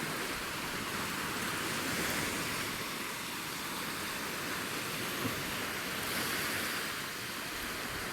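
Sea waves washing onto the shore: a steady surf hiss that swells and eases gently a couple of times.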